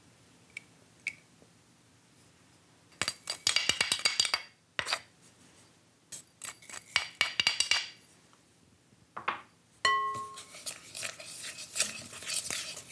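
Seasonings such as sugar being added to a glass mixing bowl in several short bursts of gritty clicking, then a wooden spoon stirring thick chili-paste sauce against the glass. The bowl rings briefly as the stirring begins about ten seconds in, followed by steady scraping and clinking.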